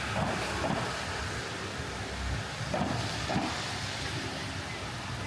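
Steady hiss of heavy rain on a city street, with a low rumble of traffic underneath.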